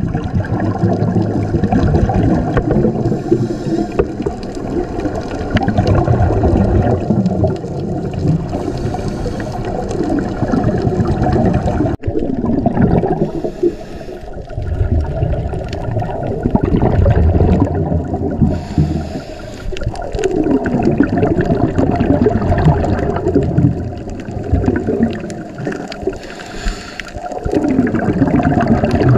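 Scuba exhalation bubbles gurgling and rumbling underwater, surging in a burst every few seconds in rhythm with the diver's breathing.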